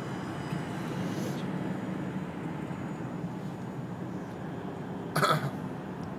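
Steady road and engine noise heard from inside a moving car, with one short, loud burst about five seconds in.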